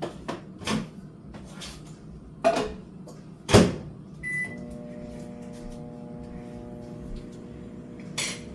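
Microwave oven being loaded and started: a few clicks and knocks, a loud clunk about three and a half seconds in as the door shuts, a short keypad beep, then the oven running with a steady hum.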